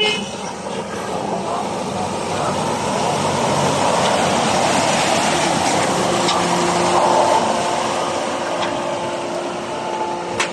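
Off-road 4x4 vehicle's engine working under load on rough ground, growing louder toward the middle and easing off near the end.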